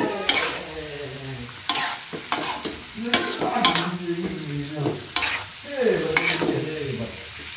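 Metal spatula scraping and knocking against a metal wok while stir-frying eggplant sambal, in repeated irregular strokes over the hiss of the frying oil.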